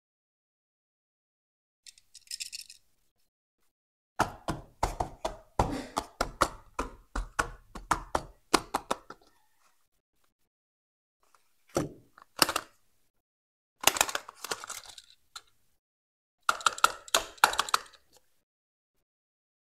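Small cardboard toy-car boxes and die-cast model cars handled by hand: a brief scratchy rustle, then a dense run of quick knocks and clicks lasting about five seconds, followed by a few shorter clusters of taps.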